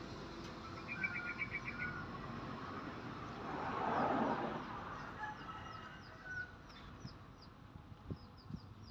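Small birds chirping: a quick trill of high notes about a second in, then a run of short, high, falling chirps in the last few seconds. A brief rushing swell of noise rises and fades near the middle.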